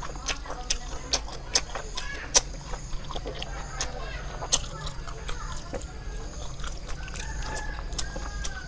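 Wet, sticky chewing and lip-smacking on caramelized pork skin and rice, a run of sharp mouth clicks. A chicken clucks in the background.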